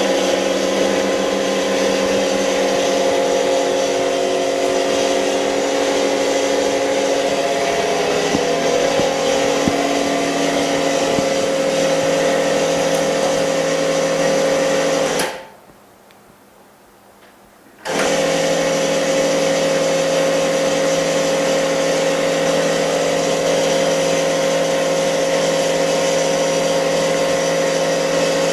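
Steady electric machine hum from a screen-refurbishing machine's motor or pump. It cuts out about fifteen seconds in and starts again about two and a half seconds later.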